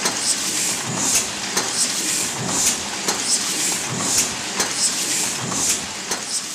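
Heidelberg cylinder letterpress running, a steady mechanical clatter in which a cycle of clicks and knocks repeats about once a second.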